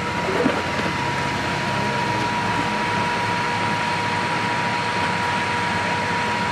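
Vehicle engine running steadily with a low rumble, and a steady tone heard throughout; a single brief knock about half a second in.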